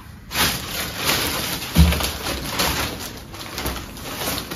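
Plastic packaging rustling and crinkling as a parcel is handled, with a dull thump about two seconds in.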